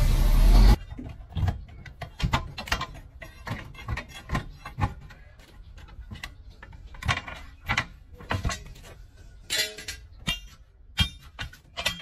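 A loud rushing noise cuts off abruptly within the first second. After it come irregular metallic clinks and knocks as a steel hand tool strikes and pries at the steel rim of a wheel loader's large tyre.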